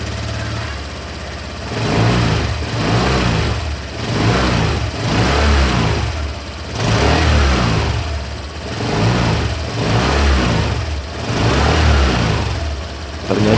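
Honda Vario 125 scooter's single-cylinder engine running, then revved repeatedly in short throttle blips about every second and a half. Its note is rough and growling (ngorok) even with the radiator cover wedged with rubber, which the owner takes to mean the radiator cover is not the cause.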